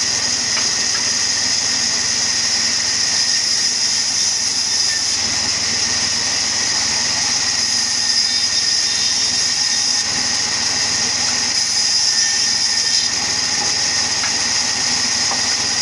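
Sawmill wood-cutting machine running steadily, with a constant high hiss and a faint steady whine.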